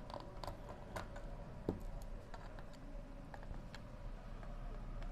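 Faint, irregular small clicks and ticks of a screwdriver working loose the screws on the underside of a laptop's plastic bottom cover.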